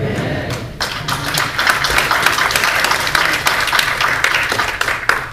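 Congregation applauding, the clapping starting about a second in and stopping near the end.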